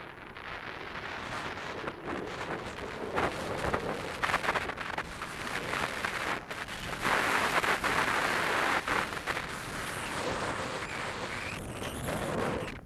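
Wind buffeting an action camera's microphone at downhill skiing speed, mixed with the hiss and scrape of skis on snow. The rushing noise surges in waves and is loudest around the middle.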